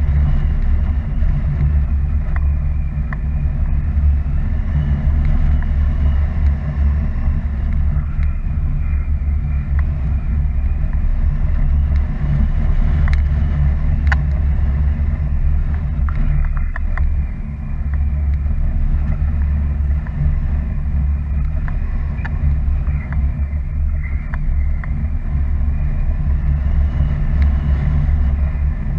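Wind rushing over a camera microphone in paraglider flight: a loud, steady low rumble of buffeting air, with a faint wavering high whistle on top.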